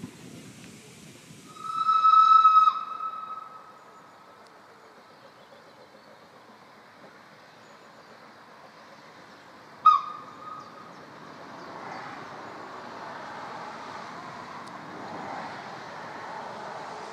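Steam locomotive whistle: one long blast of about a second near the start, then a short peep about ten seconds in. Afterwards the running noise of a small saddle-tank locomotive and its train grows louder as it approaches.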